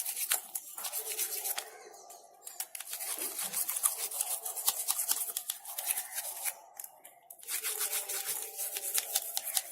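Toothbrush scrubbing the sides of a mixer grinder jar with dish soap: quick scratchy strokes in runs, with two short pauses.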